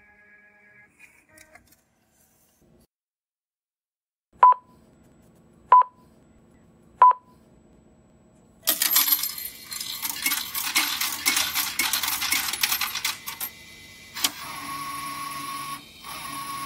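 Railway ticket vending machine (Sinfonia Technology, formerly Shinko Electric): three short button beeps about a second apart. Then coins clatter into the coin slot and through the coin mechanism for about five seconds, paying the exact fare. Near the end the ticket printer starts running with a steady whine.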